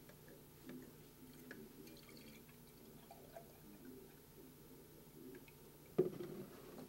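Milk poured from a plastic jug into a stainless steel frothing pitcher, a faint trickle and splash. A single knock near the end.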